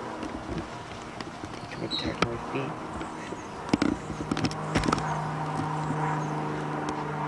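Scattered clicks and knocks, then a steady low hum that comes in about four seconds in and holds.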